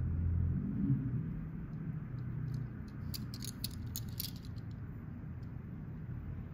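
Handling noise from a small die-cast toy car being turned over in the fingers: a quick run of light clicks and ticks about three seconds in, over a low steady hum.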